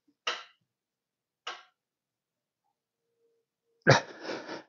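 Two short, sharp breaths from a man straining on a long cheater pipe against a breaker bar, then a loud grunt of effort near the end.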